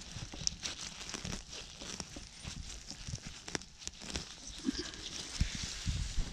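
Gloved hand rustling through grass, moss and forest litter and pulling a red aspen bolete out of the ground: irregular crackles and small snaps, with a few dull thumps near the end.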